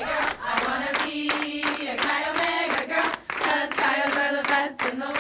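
A group of women chanting in unison to rhythmic hand clapping.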